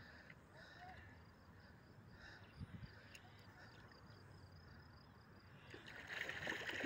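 Faint insect chirring in quiet riverside air. About six seconds in comes louder splashing and sloshing of water as a large fish is hauled thrashing into the shallows by hand.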